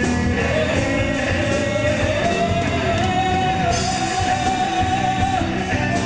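A live speed/power metal band playing: electric guitar, drums and a singer's voice through the PA, with a long held note through the middle.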